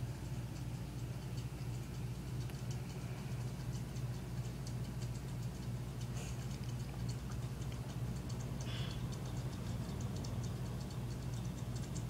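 Steady low hum of a running aquarium pump, with a fast run of faint regular ticks, several a second, over it from about four seconds in.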